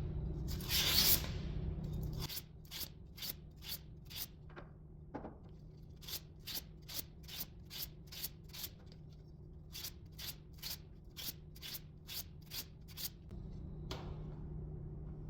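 Sandpaper rubbing a copper pipe clean before soldering: two longer strokes, then a run of short quick strokes at about two a second, with one brief pause.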